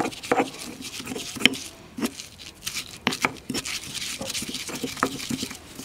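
Stone pestle pounding and grinding garlic with salt and cumin in a stone mortar: irregular knocks of stone on stone mixed with wet scraping, one strike about a second and a half in louder than the rest, as the garlic is worked toward a paste.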